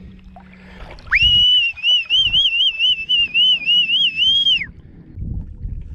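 A person whistling: one loud, high whistle that warbles up and down in pitch, starting about a second in and lasting about three and a half seconds.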